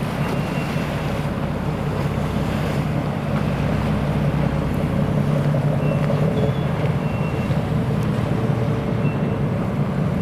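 Police patrol boat's engines running with a steady low rumble, growing a little louder midway, with wind noise on the microphone.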